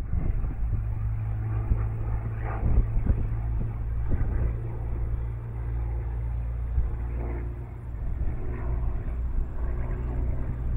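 Curtiss-Wright P-40 Kittyhawk's piston engine and propeller making a low, steady drone as the fighter flies by overhead.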